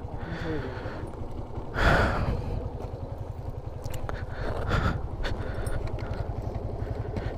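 Motorcycle engine idling with an even, low throb. A brief rush of noise comes about two seconds in.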